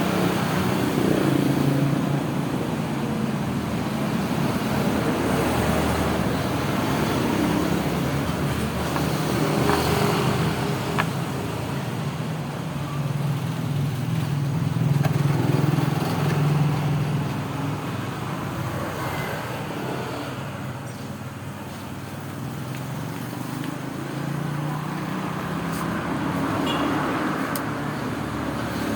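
Steady low rumble with hiss that swells and fades slowly, with a few faint clicks.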